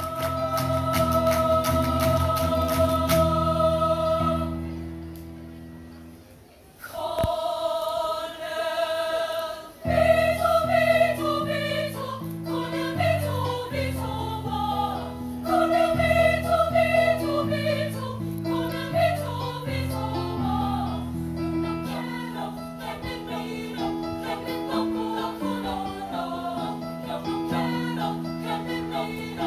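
High school choir of mixed voices singing in parts, with hand-clapping on the beat at the start. A held chord fades away about five seconds in, a short phrase follows after a brief pause, then the full choir comes back in with moving harmonies, the low voices dropping out later on.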